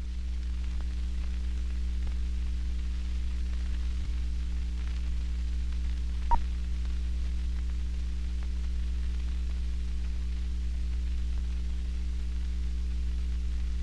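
Steady low hum and hiss from a 16mm film print's soundtrack, with scattered faint clicks and one sharp pop about six seconds in.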